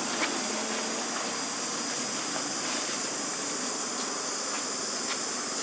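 Steady high-pitched insect chorus of crickets or cicadas chirring without a break, with a few faint ticks.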